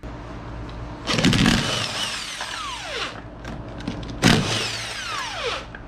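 Cordless impact wrench hammering lug nuts loose on a UTV wheel, in two runs about a second and a half long each. As each run ends, the motor's whine falls away in pitch.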